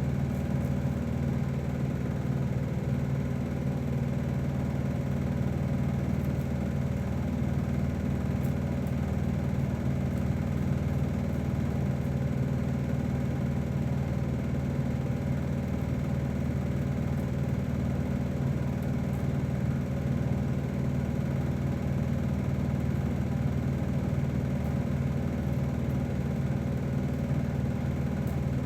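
Hair dryer running steadily, a constant motor hum with airflow, blowing lace wig glue dry.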